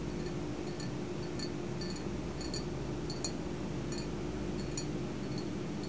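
Faint, light taps, about two or three a second and irregular, of fingernails on a diet Snapple bottle held in both hands, over a steady room hum.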